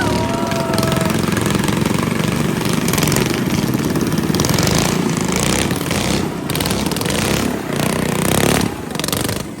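Vehicle engines running in a loud, rough, steady rumble, easing off near the end.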